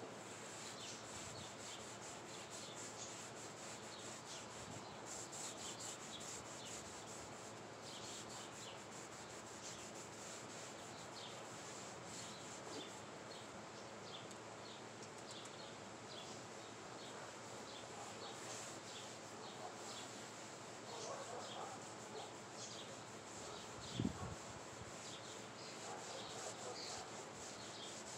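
Wood stain being rubbed onto a pine 2x4 board, a soft steady scratchy rubbing of the applicator along the grain. A single dull thump late on.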